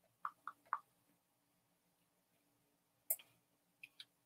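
Faint clicks of a computer mouse while a screen share is being set up. There are three quick soft clicks near the start, then a sharper click about three seconds in and two faint ones just before the end.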